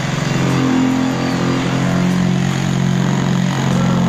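Handheld tile vibrator running with a steady motor hum while pressed flat against a large wall tile. It is shaking the tile to bed it into the adhesive behind it.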